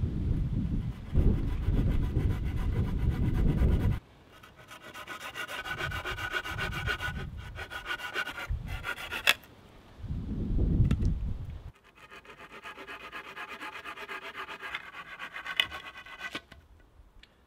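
A blade scraping along a wooden pole in two runs of quick, even strokes. The first starts about four seconds in and the second about twelve seconds in. Between them, and in the opening seconds, comes a louder low rumble.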